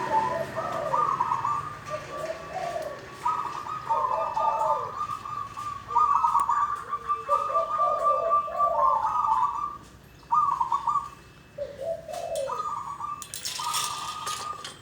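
Zebra dove (perkutut) singing: phrases of quick trilled coos, a higher burst followed by lower notes, repeated every second or two. A short burst of noise near the end.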